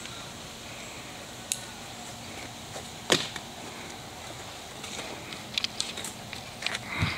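Garden hose spraying water with a steady hiss. A few sharp clicks break through it, the loudest about three seconds in and several more near the end.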